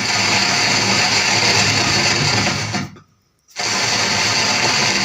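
Loud hiss with crackle from a speaker driven by an Ahuja SSA-250 amplifier, its master volume turned up with no input connected. It cuts out for about half a second near the middle, then comes back. The noise is a fault that the technician later traces to the preamp board.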